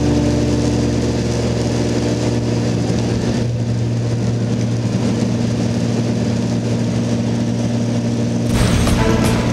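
An engine running steadily: a continuous low drone with a rough edge. About eight and a half seconds in, a broader, slightly louder noise joins it.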